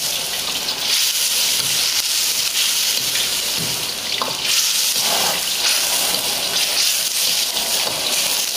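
Steady hiss of tom yam broth with sliced beef, onions and mushrooms boiling hard in a wok, with a wok ladle stirring it.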